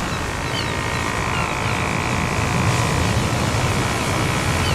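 Small electric motor of a radio-controlled model boat running under power with a steady whine that rises a little about one and a half seconds in, over a steady hiss.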